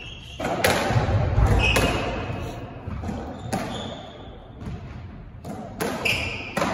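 Squash rally: the ball cracking off rackets and the walls about once a second, each hit echoing around the court, with trainers squeaking on the wooden floor between shots.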